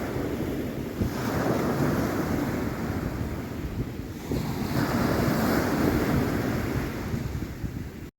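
Sea waves washing onto the shore, swelling and easing, with wind buffeting the microphone.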